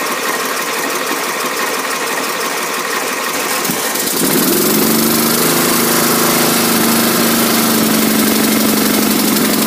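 A lawn tractor engine being cranked by its starter catches about four seconds in, picks up speed and settles into a steady run. It is a cold start on choke after a year standing unused.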